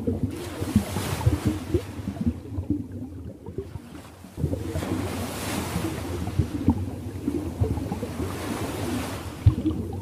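Water washing in slow swells, like small waves, with irregular low lapping splashes. It drops to a lull for about two seconds in the middle, then returns suddenly.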